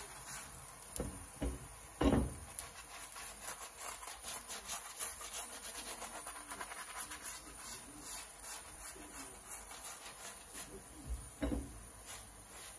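A hand rubbing oil over the surface of a dhal puri roti in a frying pan, making a continuous scratchy rubbing. A few dull knocks come in as well, the loudest about two seconds in and another near the end.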